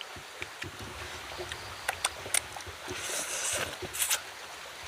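Eating by hand from a banana-leaf wrapper of steamed fish: a few short smacking clicks from chewing, and about three seconds in a brief crackly rustle of the banana leaf being picked through, over a steady low rumble.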